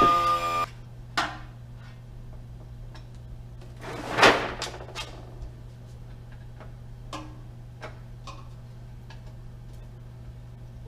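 Outboard power trim motor whining as it lowers the engine, then cutting off under a second in. Scattered clanks and clicks of tools and metal parts follow as the lower unit's drain plug is worked on, the loudest clank about four seconds in.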